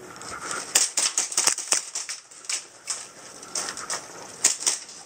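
Quick, irregular footsteps crunching on gravel, then on a hard indoor floor.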